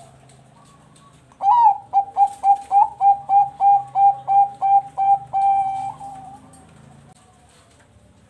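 Perkutut bangkok (Thai-bred zebra dove) singing. It gives a rapid series of about a dozen short, clipped coo notes, about three a second, ending in a longer held note that fades out.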